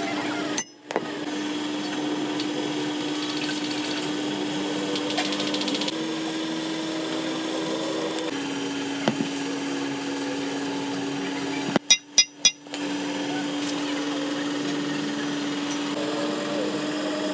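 An electric machine motor hums steadily at one pitch, stepping slightly higher and then lower partway through. A few sharp clicks break in about a second in and again near twelve seconds.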